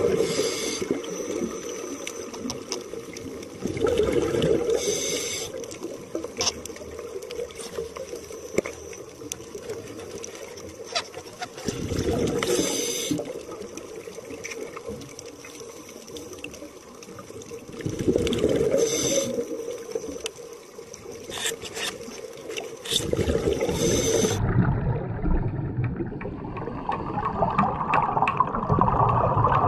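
Underwater bubbling and gurgling coming in louder surges about every six seconds, over a steady wash of water noise; about three quarters of the way through the sound turns duller and more muffled.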